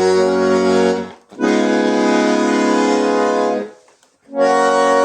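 Alfred Arnold 144-tone bandoneon playing sustained reedy chords. A short chord is followed by one held a little over two seconds, and after a brief pause another chord begins near the end.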